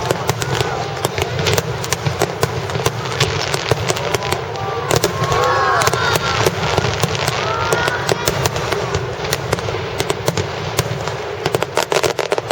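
A fireworks barrage: many sharp cracks and bangs in quick succession over a continuous rumble. Around the middle there are also sliding pitched sounds, likely onlookers' voices.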